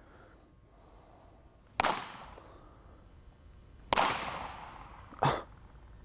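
A baseball popping into a leather Marucci fielding glove twice, about two seconds apart, each sharp pop echoing through a large indoor training hall. A shorter, softer sound follows near the end.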